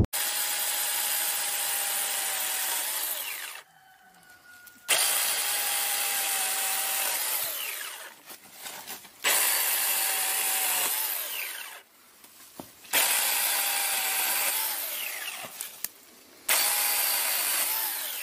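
Tomyvic 4-inch cordless mini chainsaw running and cutting through branches in five bursts of about three seconds each, with short pauses between. Its motor whine sags slightly as each cut goes through.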